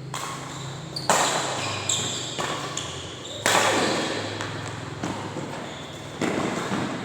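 Sharp hits echoing in a large hall, a loud one about every two to three seconds with quieter knocks between, like ball strikes in a rally.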